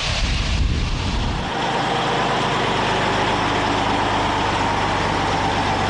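Heavy multi-axle tanker truck's diesel engine running steadily with a deep, even drone. It follows about a second and a half of rushing noise at the start.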